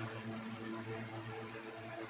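1960s Toastmaster 16-inch box fan running steadily at speed: a steady electric motor hum under the even rush of air through the blades.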